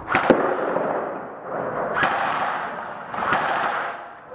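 Airsoft gunfire: three short full-auto bursts, each a rapid rattle of shots, the first starting sharply right at the beginning.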